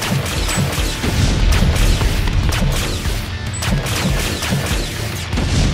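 Action soundtrack music with a steady low beat, overlaid with a rapid string of dubbed-in blaster shot and impact sound effects.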